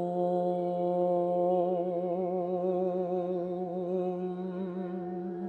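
A single voice holds one long chanted, hummed note that gains a wavering vibrato about a second and a half in. Beneath it rings a steady, pure tone, typical of a crystal singing bowl.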